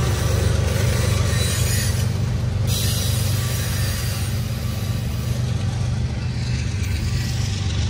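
CSX freight train rolling past: autorack cars running over the rails with a steady low rumble, while the mid-train distributed-power locomotive works hard under load as it pulls away.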